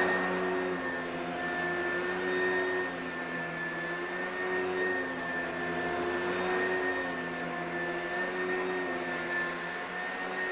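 Oreck upright vacuum cleaner running steadily with a whining motor. Its pitch dips and rises slightly every second or two as it is pushed back and forth over a rug.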